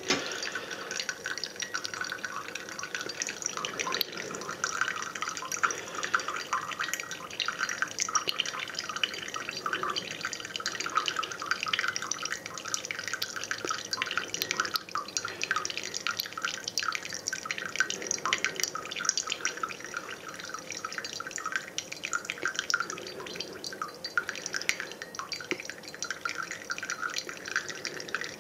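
Brewed coffee trickling from a flannel drip filter into a ceramic mug: a thin stream with a continual patter of fine drips.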